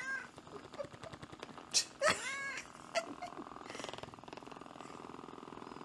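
Cat meowing: a short call at the start and a longer, stronger one about two seconds in, with small chirps between. Under the calls runs the steady buzz of a percussion massage gun pressed against the cat.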